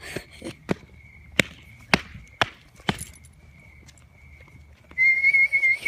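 Footsteps on a hard path, then near the end a person gives a loud, steady, high whistle held for just under a second.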